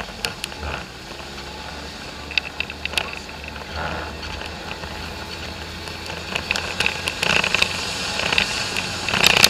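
Polaris off-road vehicle running along a rough dirt trail, its engine a steady hum with scattered knocks and rattles. It grows louder in the last few seconds.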